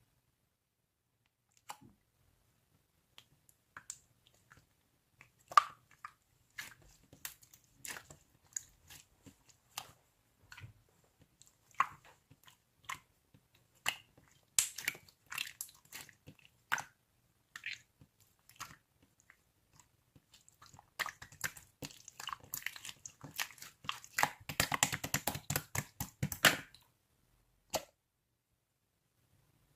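Slime handled by hand: scattered sticky clicks and squelches as it is pressed and pulled, building into a fast run of crackling pops near the end.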